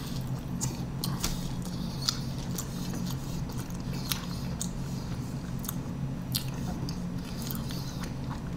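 A person chewing a mouthful of soft beef burrito: irregular small mouth clicks, over a steady low background hum.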